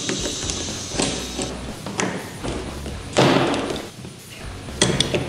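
Knocks and clicks from plastic plumbing fittings being worked loose from a plastic water-filter housing with a wrench, with a louder scraping rasp lasting under a second about three seconds in.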